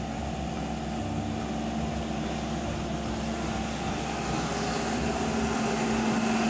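A small motor running steadily with a constant hum, growing slightly louder toward the end.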